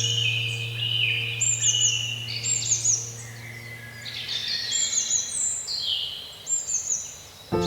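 Birds chirping and calling, with repeated short trills of quick falling notes and some longer falling whistles. Underneath, a low held musical chord fades away by about halfway through.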